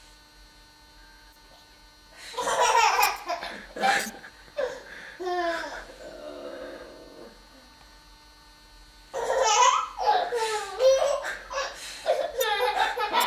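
A woman and a small child laughing in pulsed bursts, starting about two seconds in, easing off, then breaking out again from about nine seconds in.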